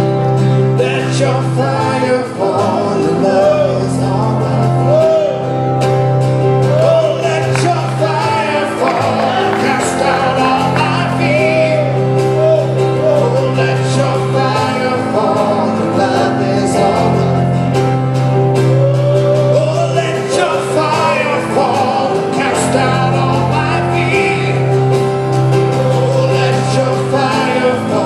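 Live church worship band playing a song, with drum kit, guitar and keyboard, and a singing voice over the band. The bass notes and the singing run on steadily, with no break.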